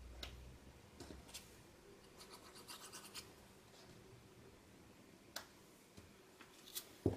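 Faint rustling and rubbing of small paper pieces handled and pressed down by hand onto a glued paper tag, with a few light ticks and a soft knock near the end.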